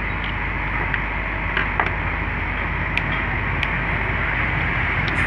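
Steady background noise, an even hiss and rumble with no rhythm, with a few faint clicks scattered through it.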